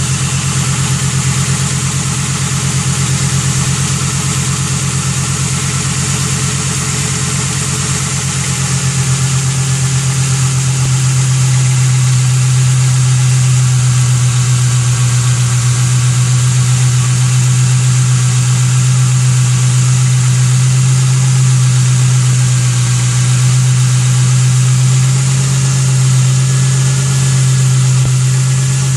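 Ford Thunderbird's 4.6-litre V8 idling steadily after sitting unused for five years, running like new; it gets slightly louder about ten seconds in.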